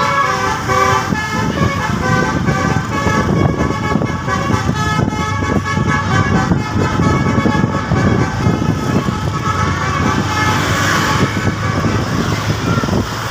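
Indonesian bus 'telolet' horn, a multi-tone musical horn, sounding a stepping tune over loud road and engine rumble. The tune is strongest at the start and fainter afterwards.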